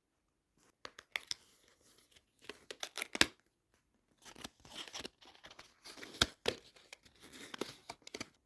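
Paper or plastic packaging being torn and crinkled in irregular crackling bursts, with a short pause partway through.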